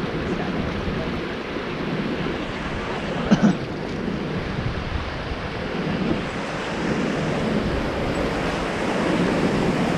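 Steady rush of whitewater from river rapids around a moving raft, with wind buffeting the microphone. A brief louder burst comes about three seconds in.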